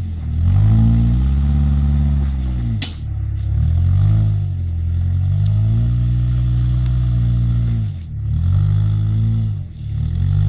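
Engine of a small 4x4 revving up and down in repeated swells as it crawls over rocks on a steep off-road track, with a sharp knock about three seconds in.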